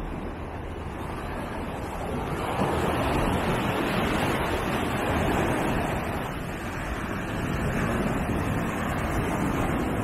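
Ocean surf breaking and washing up a beach, a steady rush of water that swells louder about two and a half seconds in and again near the end as waves come in.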